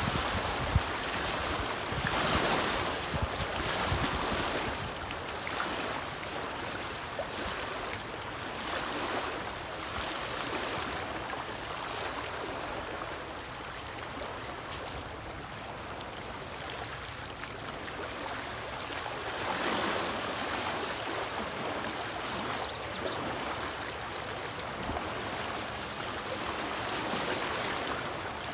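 Small lake waves lapping and splashing against a rocky shoreline, with wind gusting, loudest about two seconds in and again about twenty seconds in.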